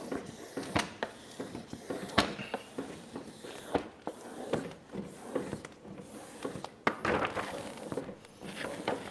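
Adhesive vinyl wrap being handled, pressed onto and pulled back from a mini fridge's panel: an irregular run of crinkles, rustles and sharp taps.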